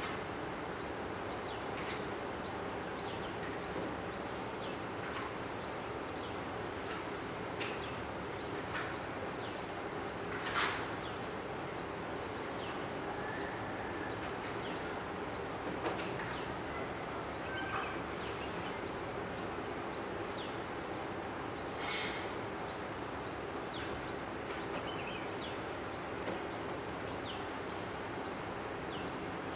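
Insects trilling steadily on one high pitch over a soft hiss, with a few faint scattered clicks and chirps.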